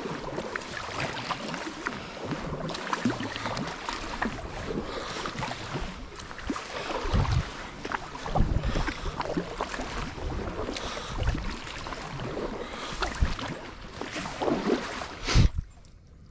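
Kayak paddling: paddle blades splashing and dripping as strokes are taken, water moving along the hull of a Nucanoe Pursuit kayak, with irregular dull thumps every second or two. The sound drops away abruptly near the end.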